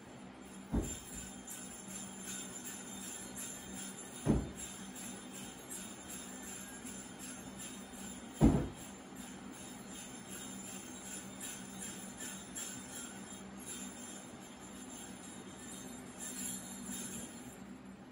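Sleigh bells jingling throughout, with three heavy thumps, about a second, four seconds and eight seconds in.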